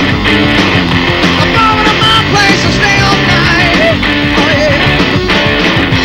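Hard rock band playing at full volume: electric guitar, bass guitar and drum kit, with a few notes that bend in pitch.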